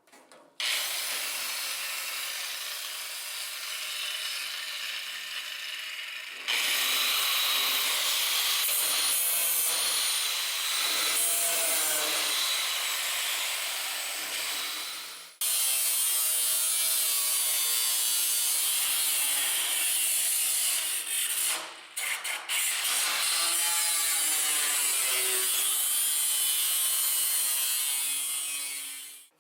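Cut-off saw cutting through the thin sheet metal of an old snowmobile tunnel: a harsh, loud screech in long passes, its pitch sliding as the wheel bites, with brief stops about halfway through and again a few seconds later.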